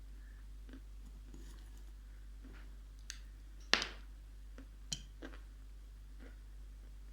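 Close-miked crunching of dried Ural clay being bitten and chewed: a few scattered sharp crunches, the loudest about halfway through.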